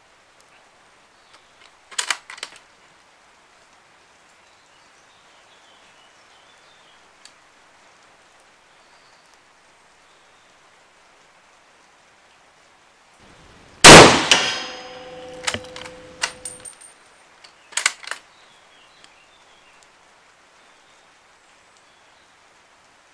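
A Carcano M91/41 bolt-action rifle (6.5×52 mm) fired once, loud and sharp, about fourteen seconds in, with a metallic ringing after the shot. Sharp metallic clacks of the bolt being handled come about two seconds in and again in the few seconds after the shot.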